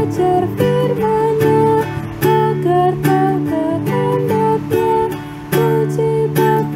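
Acoustic guitar strummed as a hymn accompaniment, with a melody of held notes stepping up and down above the chords.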